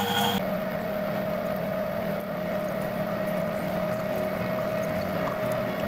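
Metalworking lathe running steadily with a constant tone, a drill in the tailstock chuck boring into a brass hexagon piece held in the spinning three-jaw chuck. The running sound starts abruptly about half a second in.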